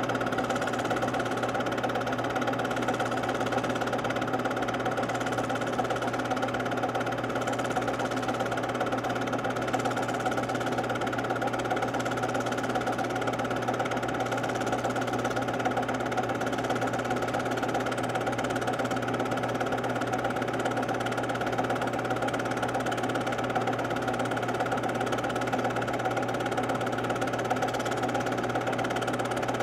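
Film projector running with a steady mechanical whir and hum; the home-movie film itself carries no sound.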